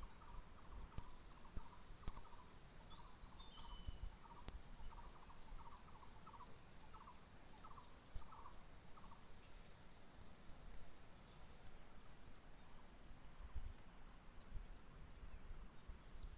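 Faint outdoor ambience: a steady high insect drone, with a run of short chirping calls repeated about one and a half times a second through the first half. A few scattered low knocks are also heard.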